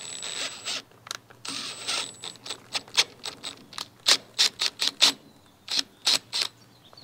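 A drill driving a tap slowly to cut threads in a bolt hole on a cast-iron vise. It makes two short whirring runs, then a low steady hum with a quick string of sharp clicks.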